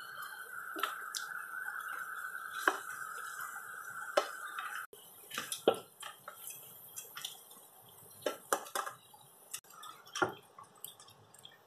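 A cooking utensil knocking and scraping against a stainless steel pot while chicken pieces are stirred into a thick tomato stew, with wet squishing of the sauce and irregular clicks. A steady high hum cuts off suddenly about five seconds in.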